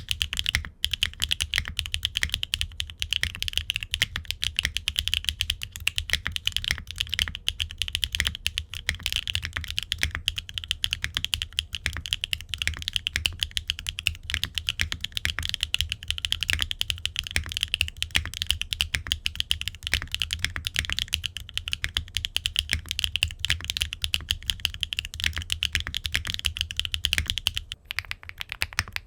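Fast, continuous typing on a gasket-mounted Qwertykeys Neo65 mechanical keyboard with HMX linear switches, an aluminum case and plate, no foam and ABS double-shot keycaps. It gives a dense run of keystroke clacks, with a short pause near the end.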